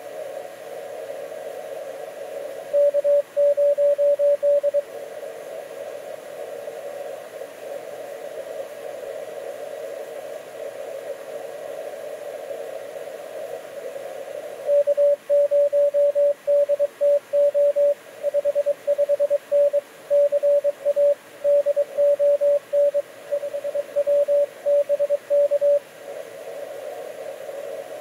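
Morse code (CW) signal received on a 20-meter amateur radio receiver: a single steady tone keyed on and off in dots and dashes, in a short run a few seconds in and a longer run from about halfway to near the end. Between the runs there is only the receiver's steady narrow-band hiss.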